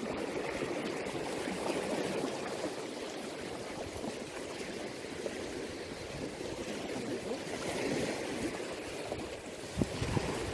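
Turbulent water rushing and churning in a strong current, a steady rush. A brief knock sounds near the end.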